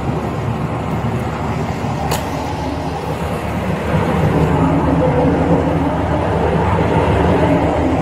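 Vehicle engine idling steadily, getting somewhat louder about four seconds in, with a brief high squeak about two seconds in.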